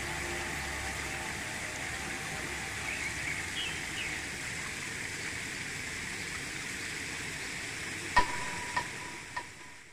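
Shallow stream running over pebbles, a steady rush of water with faint bird chirps. Near the end come a few sharp clicks, the first and loudest with a brief ringing tone after it.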